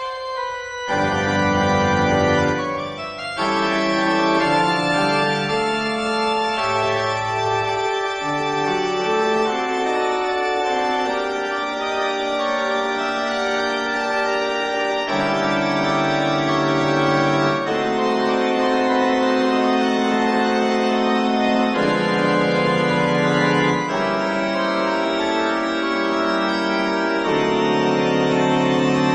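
Organ music playing slow, long-held chords that change every few seconds.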